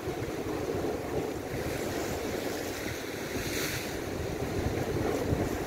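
Wind buffeting the microphone over the steady wash of sea surf against rocks, with a brief louder hiss about three and a half seconds in.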